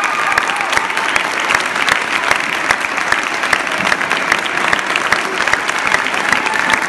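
Audience applauding: dense, steady clapping from a crowd of spectators.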